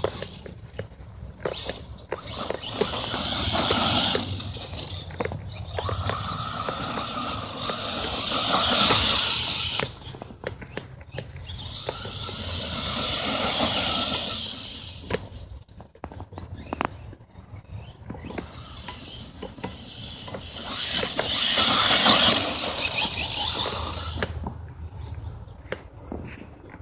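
Electric RC truck's motor and drivetrain whining as it drives over grass, the sound swelling and fading several times as the truck comes close and moves away.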